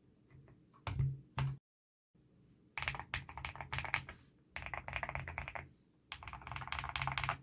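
Mechanical keyboard typing on an Akko ACR Top 40 with Akko Cream Yellow V3 linear switches and Akko clear keycaps. Two single keystrokes come about a second in, then the sound cuts out for a moment, then three bursts of fast typing follow.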